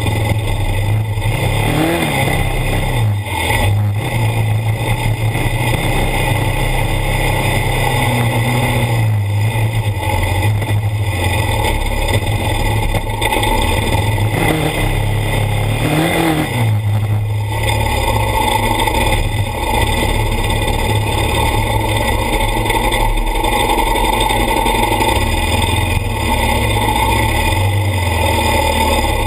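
ATV engine running hard on board while riding over sand hills, revving up and back down sharply twice, about two seconds in and again around sixteen seconds.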